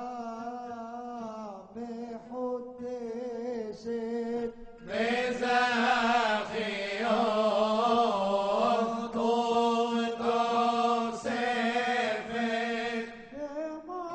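Men's voices chanting a bakashot hymn in cantorial style over a steady low held note. About five seconds in the singing grows fuller and louder, as if more voices join, and it falls back shortly before the end.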